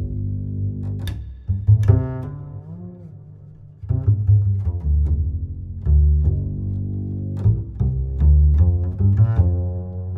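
Background music of low plucked notes, with a quieter passage about two to four seconds in.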